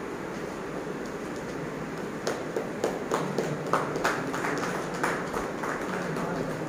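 Scattered hand claps, a few irregular claps a second, starting about two seconds in and dying away by about five and a half seconds, over a steady air-conditioner-like room hum.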